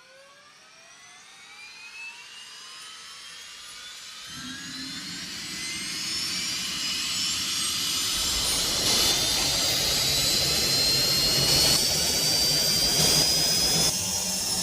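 Rocket lift-off sound effect: a whine that climbs steadily in pitch, joined about four seconds in by a low rumble, the whole sound growing steadily louder.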